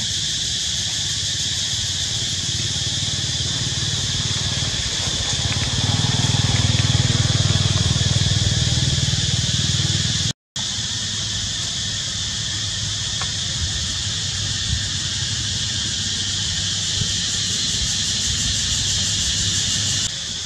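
Steady, high-pitched drone of insects over a low rumble that swells for a few seconds early in the first half; the sound drops out for a moment near the middle.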